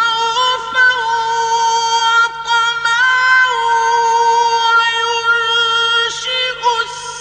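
A male Quran reciter chanting in a very high register, in the upper octave of maqam Rast, holding long ornamented notes with brief pauses.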